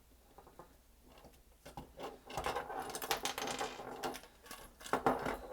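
Small plastic parts of a taken-apart DualShock 4 controller being handled: a quick run of light clicks and rattles starting about two seconds in.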